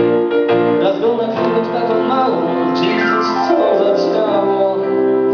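Kurzweil electronic keyboard playing sustained chords in an instrumental passage of a live song, with a long falling slide in pitch about three seconds in.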